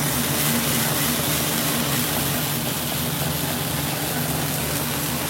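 An engine running steadily, a low hum under an even hiss.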